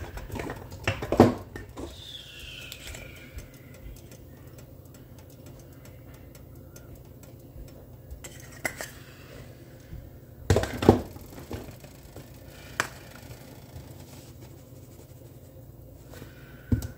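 Occasional kitchen clatter of pots, dishes and utensils being handled: a few sharp knocks, the loudest about eleven seconds in, over a steady low hum.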